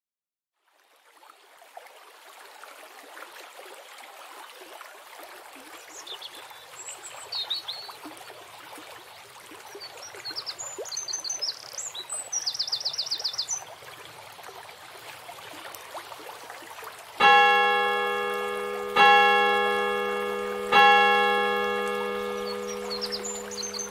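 Ambience fading in: steadily running fountain water with small birds chirping, then a church bell struck three times, about two seconds apart, each stroke ringing on and slowly fading. The bell strokes are the loudest sounds.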